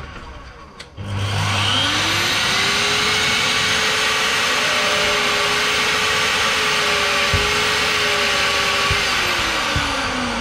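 Weka core drill motor, just serviced, switched on in gear number one about a second in. It spins up with a rising tone, runs at a steady pitch, and is switched off near the end and winds down, on a test run after its service.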